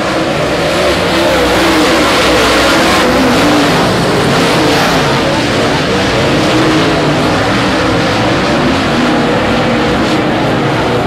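A pack of dirt late model race cars' V8 engines running hard together, loud and continuous, the engine notes wavering up and down as the cars race past.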